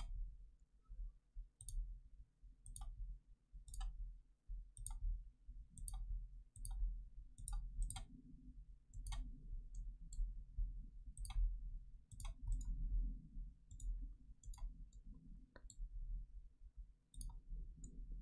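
Computer mouse button clicks, about twenty single clicks at irregular intervals, over a faint low room hum.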